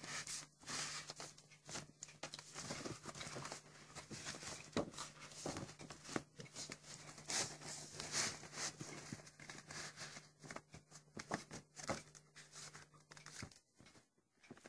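Paper and card rustling and scraping as a spiral-bound workbook is handled and slid into a faux-leather folio, with irregular taps and knocks. A steady low hum runs underneath and stops about a second before the end.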